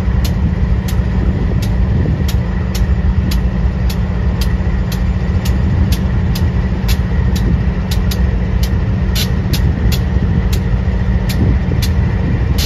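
GE Dash 9-44CW diesel-electric locomotive pulling slowly away, its V16 diesel running loudly under load as a steady deep rumble. A sharp regular strike sounds about twice a second throughout.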